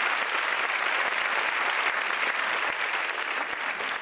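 Audience applauding steadily, a dense patter of many hands clapping, easing off slightly near the end.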